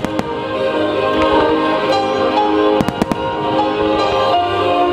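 Starmine fireworks bursting: sharp bangs, a couple at the start and a quick cluster of several about three seconds in, over music with long sustained notes playing throughout.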